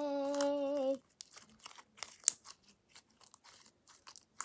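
A child humming one held note, cut off about a second in, then sticky homemade slime being squeezed and pulled between the hands, giving irregular small wet clicks and pops.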